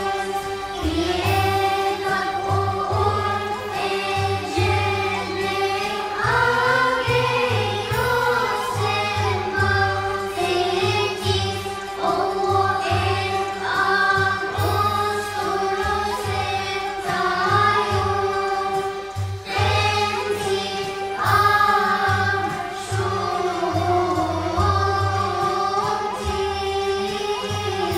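Children's choir singing a slow hymn to the Holy Spirit, with low accompanying notes repeating beneath the voices.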